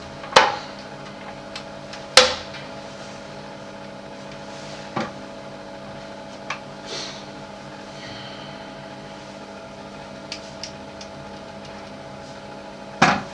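Extractor fan humming steadily, with a handful of sharp plastic clicks and knocks as the toilet seat's hinge caps are snapped back on and the seat is handled; the loudest click comes about two seconds in, another near the end.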